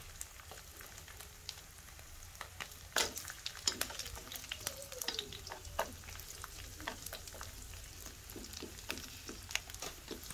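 Dried gourami fish frying in hot oil in a pan, being fried until crisp: a soft steady sizzle with irregular pops and crackles.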